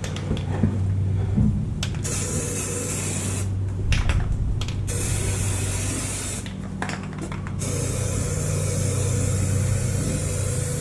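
Aerosol can of Rust-Oleum rubberized undercoating spraying in three hissing bursts, each a second or more long, over a steady low hum.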